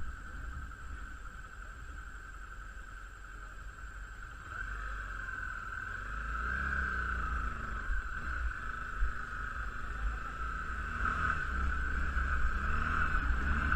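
Wind rumbling on the microphone outdoors, growing louder about four seconds in, over a steady high-pitched hiss.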